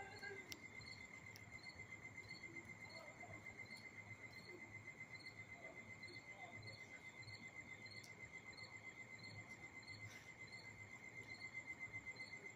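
Near silence with crickets trilling steadily, one high chirp repeating about twice a second over a continuous trill.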